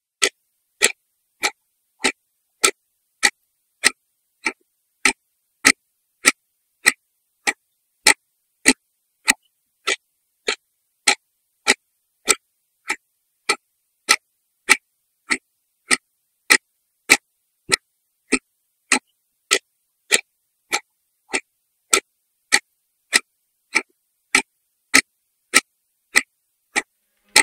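A clock ticking steadily, a little over two even ticks a second, with silence between the ticks.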